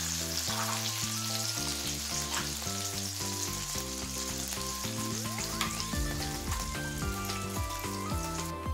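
Fat sizzling and bubbling hard in a skillet as beef steaks fry. The sizzle cuts off near the end. Background music with stepping notes plays under it.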